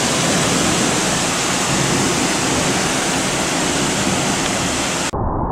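Heavy rain pouring down in a thunderstorm, a loud, even hiss. About five seconds in it cuts abruptly to a muffled, low rumble.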